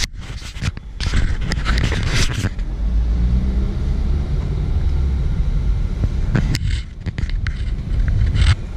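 Low, steady rumble of a car moving slowly in city traffic, heard from inside the cabin. During the first couple of seconds there is a clatter of scrapes and knocks from the camera being handled and turned, and two more knocks come later.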